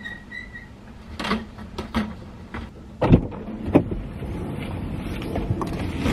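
Someone getting into a parked car. There are a few faint high beeps at the start and several sharp clicks, then a heavy thump about three seconds in. After that comes a steady stretch of rustling and knocks as the person settles into the seat and pulls the seatbelt across.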